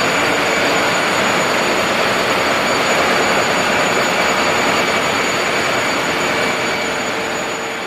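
Ship's engine-room machinery running: a loud, steady mechanical roar with a constant high whine over it, fading out near the end.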